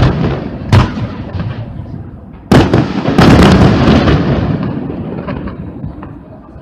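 High-altitude aerial firework shells bursting. There is a sharp bang about a second in, then another at about two and a half seconds, followed by a dense run of reports that die away near the end.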